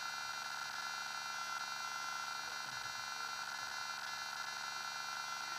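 Steady electrical whine and buzz made of several fixed tones, the strongest high-pitched, unchanging throughout, typical of electrical interference on a small camera's microphone.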